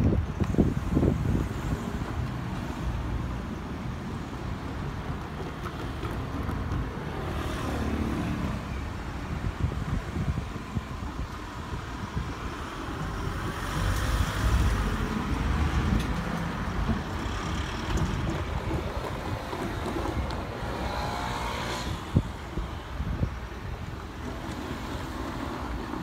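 Passing vehicles rumbling steadily, with a whine that falls about eight seconds in and another that rises about twenty-one seconds in, and a single knock a little after that.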